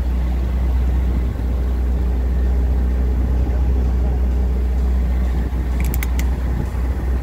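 Motorboat engine running steadily under way, a constant low drone with wind buffeting the microphone. A few faint clicks about six seconds in.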